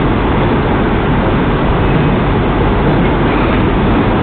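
Steady loud rushing room noise with a low hum underneath, unchanging throughout; no cue or ball strikes.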